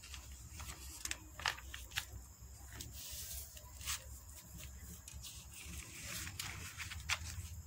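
Pages of a glossy paper catalogue being handled and turned: scattered soft rustles and light taps, over a faint steady low hum.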